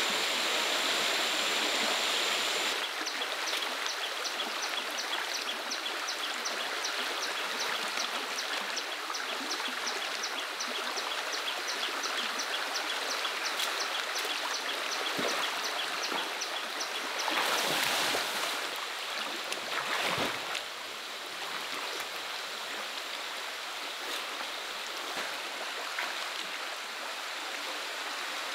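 Stream water rushing steadily. A faint high ticking, about three a second, runs through the middle, and a louder swell of rushing noise comes about two thirds of the way through.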